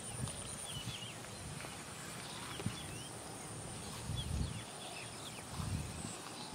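Open-field ambience: small birds chirping in short, scattered high calls over a faint, steady, high-pitched insect buzz, with a few low, muffled rumbles now and then.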